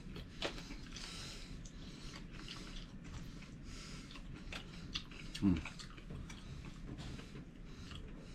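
Close-up chewing of crispy fried bluegill: repeated crunchy bites and small mouth clicks, with one louder low thump about five and a half seconds in.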